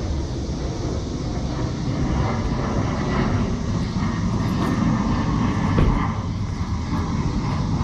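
Steady, low rumbling background noise, like a running vehicle or machinery.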